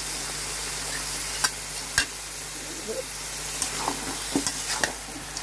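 Beef pieces sizzling in a hot pan as they are stirred with a metal spatula. The spatula clicks and scrapes against the pan twice near the start of the sound, then several more times in its second half.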